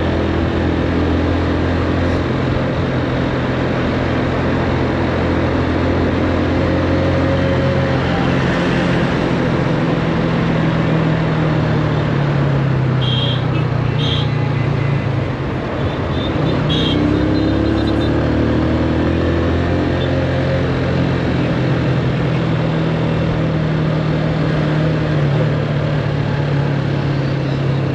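Motorcycle engine running at road speed, heard from the rider's position with wind rushing past. About halfway through the engine note dips briefly, then climbs again. A few short high-pitched beeps sound near the middle.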